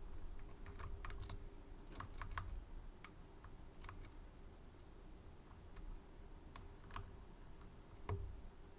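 Small, irregular metallic clicks of lock picks and a tension wrench working the pins inside a Medeco M3 high-security lock, about a dozen light clicks in clusters.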